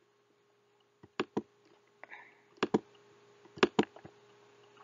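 Sharp clicks from working a computer, coming in three quick pairs about a second apart.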